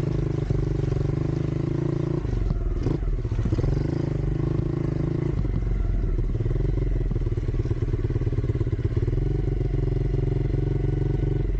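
Dirt bike's single-cylinder engine running at a steady throttle while being ridden, with a brief dip and recovery in engine pitch about two to three seconds in.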